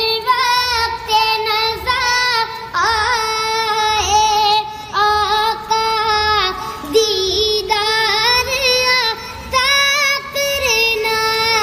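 Channel intro jingle: a high-pitched voice singing a melody of held, gliding notes over a soft, steady low beat.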